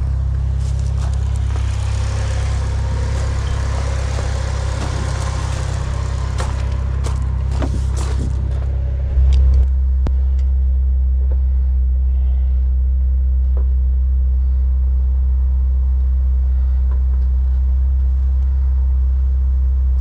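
2002 Saturn L200's 2.2-litre four-cylinder engine idling steadily, running again after a crank-no-start fault was fixed. For about the first nine seconds, rustling handling noise and a few clicks lie over the low idle drone. After that the drone steps up slightly and holds steady, heard from inside the cabin.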